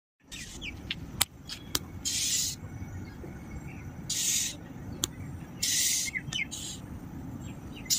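Birds chirping over a low steady background noise, with three short hissing high bursts and a few sharp clicks.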